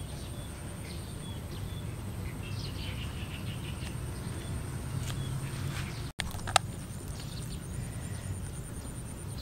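Outdoor rural ambience: a steady low rumble with scattered short bird chirps. A little past halfway there is a brief dropout, then a single sharp click.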